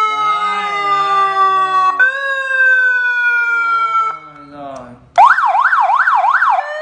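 A 6-mode 50 W electronic siren horn sounds through its speaker as it is switched between tones. First a slowly falling tone, which jumps up about two seconds in and falls again. Then it cuts out briefly, and from about five seconds a fast yelp warbles about three times a second, changing near the end to a slow rising wail.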